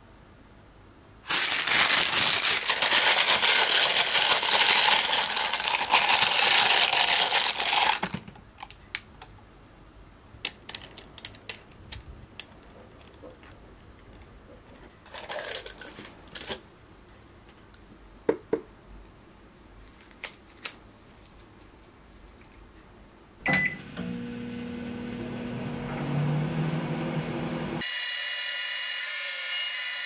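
A loud rustling noise for several seconds near the start, then scattered clicks and knocks as a glass bowl and its cover are handled. About two-thirds through, a short beep, and a microwave oven starts running with a steady hum, which changes in tone near the end.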